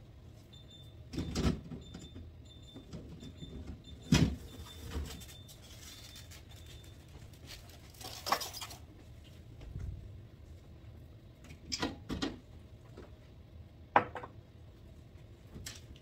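Intermittent knocks and clatters of refrigerator shelves, bins and containers being handled while the fridge is cleaned, including one short scraping rub about eight seconds in. A faint high beep repeats a few times a second through the first half.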